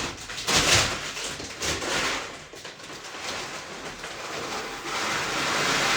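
Dry poultry feed (scratch grains, layer pellets, cracked corn and duck feed) being poured into a 5-gallon bucket feeder, a rattling hiss of grain. It comes in a few short pours at first, then a longer, steadier pour near the end.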